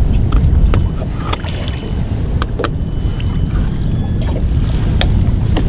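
Wind buffeting the microphone in a steady low rumble, with scattered sharp clicks of a knife tapping a plastic cutting board as squid strip baits are sliced.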